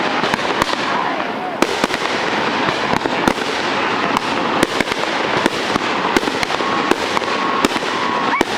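Fireworks going off in rapid succession: a constant crackle with many sharp pops and bangs throughout.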